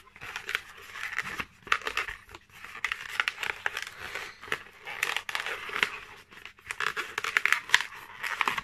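Latex modelling balloon rubbing and squeaking against itself and the fingers as it is twisted and worked into shape, in irregular spells of short crackly rubs throughout. These are the final twists of a balloon airplane.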